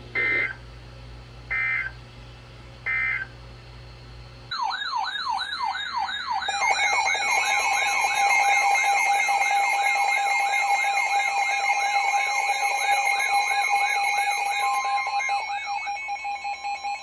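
Emergency Alert System tones from a NOAA weather radio, heralding a severe thunderstorm warning. Three short data bursts of the digital alert header come first. About four seconds in, a warbling, siren-like alert tone starts, and a steady attention tone joins it shortly after; near the end both break up and stop.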